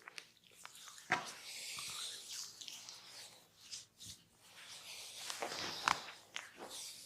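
Hands rubbing and kneading skin during a massage, a close rustling friction sound, with sharp short impacts, the loudest about a second in and another near six seconds.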